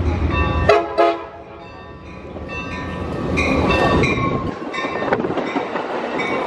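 Amtrak Pacific Surfliner train sounding two short blasts on its horn about a second in, then its bilevel passenger cars rolling past close by, the rumble swelling as they pass, with some high-pitched squeals.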